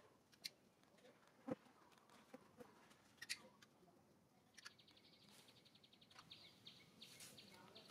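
Near silence: faint outdoor ambience with a few soft scattered clicks, and from about halfway a faint, fast chirping trill.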